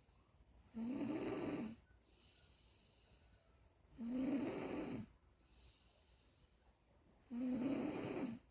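Snoring in a slow, even rhythm: three long, low, rasping snores about three seconds apart, with faint breathing between them.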